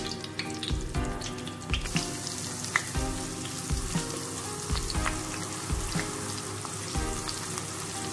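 Lumps of ground egusi (melon seed) paste sizzling and frying in hot palm oil in a pot, the hiss growing fuller as more goes in. A spoon knocks about once a second as each lump is dropped in.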